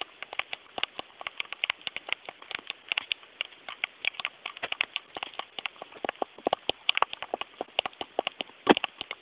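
Plastic Lego minifigure tapped along a studded Lego baseplate to walk it, a quick irregular patter of small plastic clicks, several a second, with one louder knock near the end.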